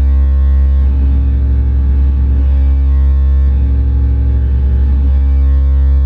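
Live experimental electronic noise music: a loud, steady low drone with layers of held tones above it. The upper layer switches a few times between steady tones and a rapid flutter.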